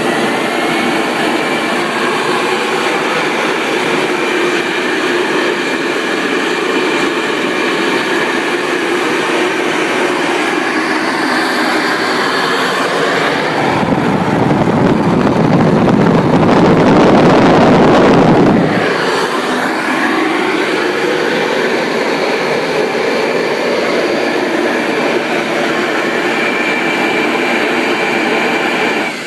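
Homemade jet engine built on a small Garrett turbocharger running: a steady combustion roar with a high turbine whine over it. Past the middle the roar swells louder and deeper for about five seconds, then settles back to its earlier level.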